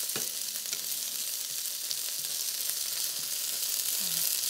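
Artichoke pieces sizzling in olive oil in a non-stick frying pan, a steady hiss, with a wooden spatula stirring them and tapping the pan a few times.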